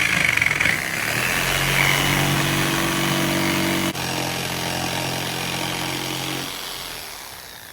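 Skil circular saw running and cutting through plywood: a loud motor whine that wavers as the blade bites, runs steadily with a brief dip about four seconds in, then winds down about six and a half seconds in.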